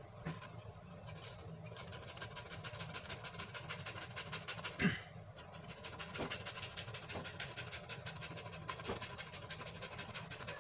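Green papaya being grated on a flat metal hand grater over an aluminium pot: quick, steady scraping strokes, with a brief pause and a single louder knock about five seconds in.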